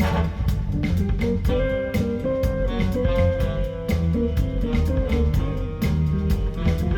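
Recorded music played back through Silent Pound Challenger loudspeakers: guitar over bass and drum kit, with a steady beat.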